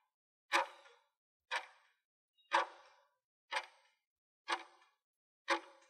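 Countdown-timer sound effect: a clock ticking once a second, six sharp ticks in all.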